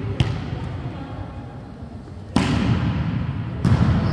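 A volleyball struck hard twice, about a second and a quarter apart, each hit sudden and echoing in a large gym.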